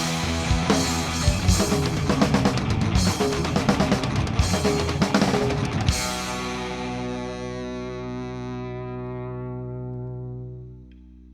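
Instrumental rock band playing, with distorted electric guitar and drum kit. About halfway through the drums stop and a final chord is held, ringing out and slowly fading, then drops away near the end.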